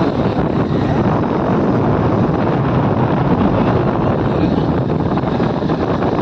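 Loud, steady wind noise buffeting the microphone, with the rumble of a moving vehicle beneath it.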